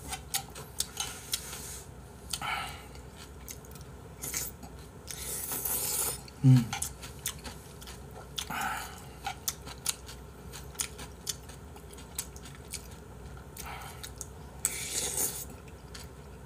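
Metal spoon and fork clinking and scraping against a ceramic bowl of ramyun, with noodles slurped and chewed several times. A short low vocal sound comes about six and a half seconds in.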